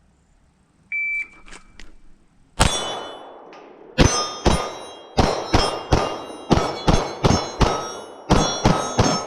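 Shot timer beep about a second in, then pistol shots on steel targets: a first shot about a second and a half after the beep, then a fast, uneven string of a dozen or so shots, each followed by the ringing clang of the hit steel plate.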